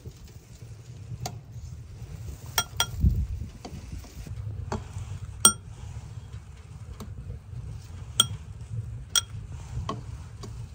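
Cookware and utensils clinking during food preparation: about half a dozen sharp, briefly ringing clinks at irregular intervals, over a low steady rumble.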